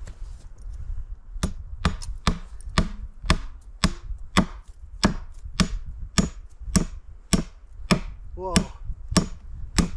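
Hammer driving nails into a wooden plank bench: a steady run of sharp blows, about two a second, starting a little over a second in. Wind rumbles on the microphone underneath.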